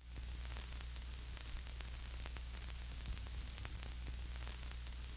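Steady static hiss over a low electrical hum, with faint crackles scattered through it.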